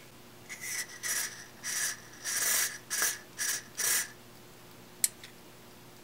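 Short hissing squirts from an aerosol can of contact cleaner sprayed through its straw into a scratchy amp potentiometer to clean it, about seven bursts in quick succession. A single sharp click follows about a second later.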